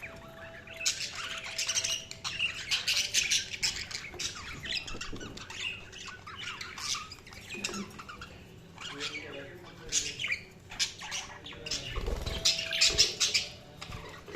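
Budgerigars chirping and chattering in a rapid stream of short squawky calls, with busier bursts now and then.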